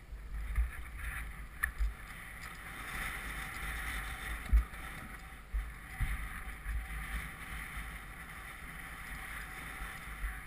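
Honda motocross bike engine running, muffled, as the bike is ridden over a dirt track, with wind buffeting the microphone and low thumps from the bumps. One louder thump about four and a half seconds in.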